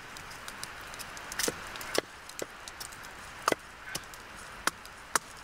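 A blade chopping and splitting thin wooden sticks against a wooden stump to make roasting skewers: about half a dozen sharp wooden knocks at irregular spacing.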